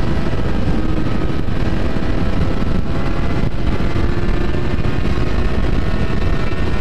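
Wind rushing over the microphone of a motorcycle at highway speed, with the engine's steady drone underneath, its pitch drifting slowly.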